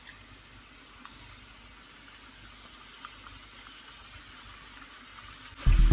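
Oil sizzling in a steady, soft hiss as strips of namak pare dough deep-fry over a low flame, with a few faint taps. Near the end a louder sound with low tones cuts in.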